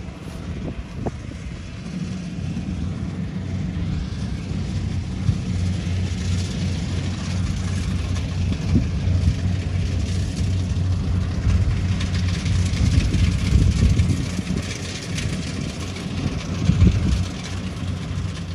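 Rice combine harvester's engine and machinery running steadily while harvesting, a low hum with a hiss over it, growing louder through the middle and peaking near the end.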